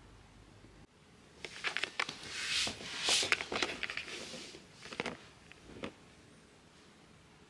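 Rustling and scratching on fabric, with sharp light clicks, in uneven bursts that start about a second and a half in and die away near six seconds.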